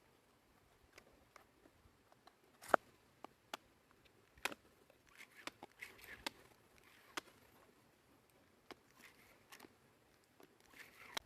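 Scattered light clicks and taps of small hard parts and tools being handled at close range, the sharpest a little under three seconds in.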